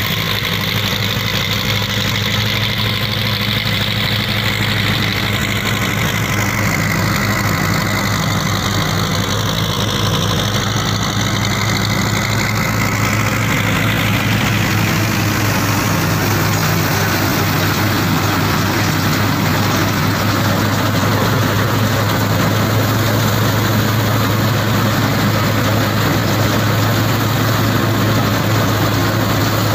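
Powertrac Euro 50 tractor's diesel engine running steadily under load while it drives a Jagatjit straw reaper through its PTO shaft, a loud, even low drone.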